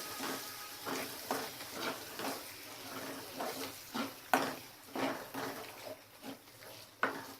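A spoon stirring and scraping kidney pieces through a sizzling onion-garlic masala in a frying pan, in irregular strokes over a faint frying hiss.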